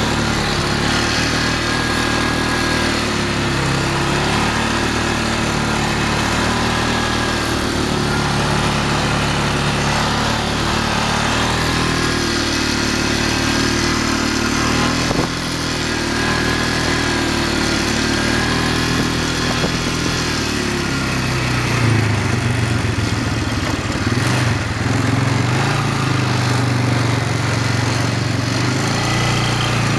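Polaris Sportsman 500 ATV's single-cylinder four-stroke engine running under way, its pitch rising and falling with the throttle. From about two-thirds of the way through it holds a steadier, stronger note.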